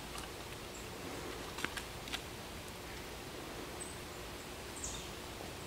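Quiet outdoor ambience by a pond: a steady background hiss, a few faint clicks, and two brief high chirps near the end.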